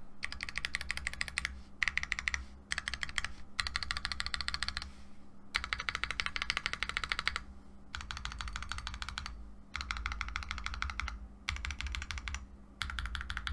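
Typing on a mechanical keyboard with lubed Akko CS Lavender Purple linear switches and PBT keycaps, fast runs of keystrokes in bursts of a second or two with short pauses between.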